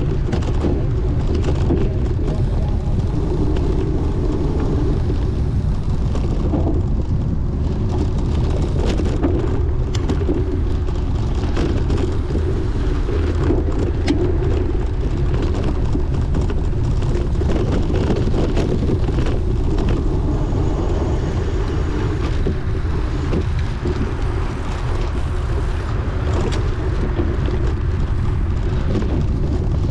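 Steady rush of wind on the microphone with the rattle of a bicycle ridden fast over rough ground, and many scattered clicks and knocks from the bike.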